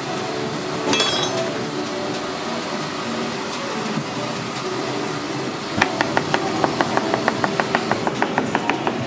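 Chef's knife chopping an English cucumber on a white plastic cutting board: a quick, even run of knocks, about five a second, starting about six seconds in, over a steady background hum.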